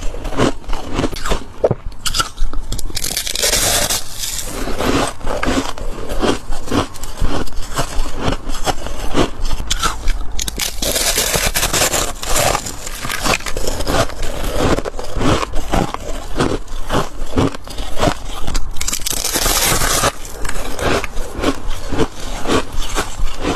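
Freezer frost crunched and chewed close to the microphone: a dense run of crisp, irregular crunches. Three longer hissing stretches of frost being scraped come a few seconds in, about halfway and near the end.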